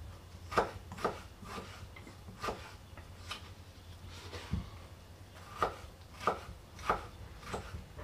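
Kitchen knife dicing a tomato on a thick wooden cutting board: about ten short, sharp knocks of the blade on the wood at an uneven pace, with a pause near the middle.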